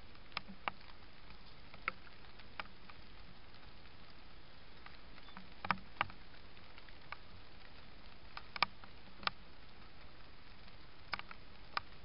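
Steady hiss of a trail camera's microphone, with about a dozen sharp ticks scattered irregularly through it.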